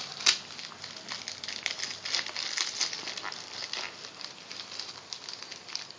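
Clear plastic packaging around a new laptop crinkling and rustling as it is handled and opened, with many small irregular crackles and one sharper crackle just after the start.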